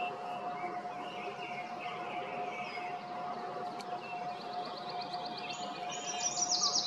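Small songbirds calling and singing: thin high chirps, then from about halfway a fast trill of evenly repeated high notes that climbs higher and is loudest near the end. A steady faint tone hums underneath.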